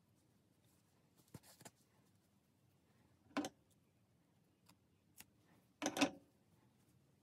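Quiet room with a few brief handling sounds from hand-sewing a knitted toy: light knocks and rustles, four in all, the loudest about six seconds in.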